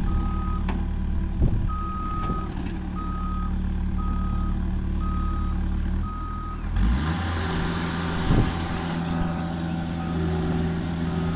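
Heavy-equipment backup alarm beeping about once a second over a diesel engine running. About seven seconds in, the engine revs up and a rushing hiss joins it. The beeping comes back near the end.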